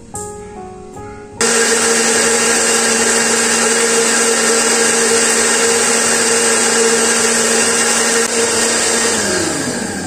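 Electric countertop blender blending an orange liquid: switched on about a second and a half in, it runs at a steady high speed with a loud, even motor hum, then is switched off near the end, its pitch sliding down as the motor spins down.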